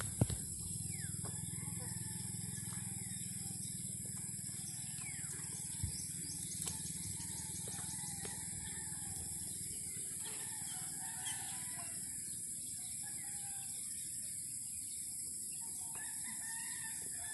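Outdoor riverside ambience: scattered short bird calls and chirps over a steady high hiss and a low background rumble. There is a sharp tap just after the start and a smaller one about six seconds in.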